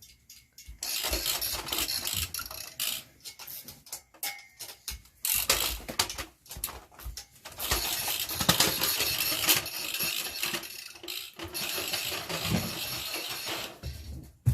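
Hand tools working a motorcycle tire off or onto its rim: irregular scraping and rubbing of rubber and metal with frequent sharp clicks and knocks, in stretches with short pauses about a third and half of the way through.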